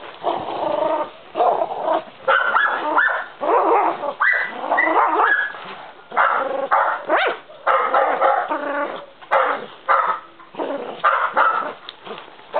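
Young dog barking over and over, in a run of drawn-out barks that follow one another with short breaks.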